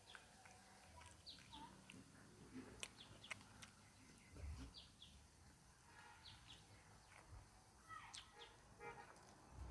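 Faint bird chirps in the background, short notes falling in pitch, scattered through with a few soft clicks.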